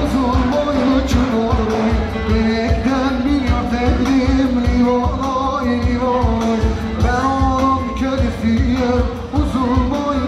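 Music: a singer's melody over a band with a steady beat.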